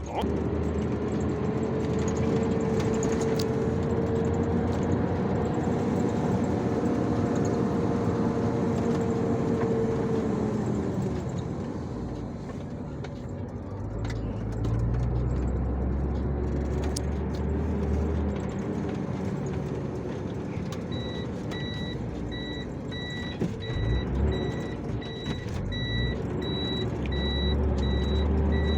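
Truck engine running with a steady whine from the turbocharger, which the owner says is making a strange noise; the whine fades out about eleven seconds in and the engine settles lower. From about two-thirds of the way through, a reversing alarm beeps about twice a second.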